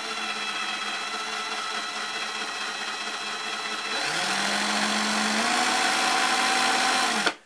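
Cordless drill running slowly while spinning a small permanent-magnet motor taken from a citrus juicer and used as a generator. About four seconds in, its whine rises in pitch as it speeds up, then steps higher still. Near the end it cuts off abruptly and starts again.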